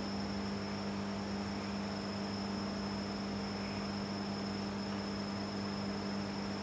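Steady electrical hum from running aquarium equipment, a low drone with a thin high whine and a background hiss, unchanging throughout.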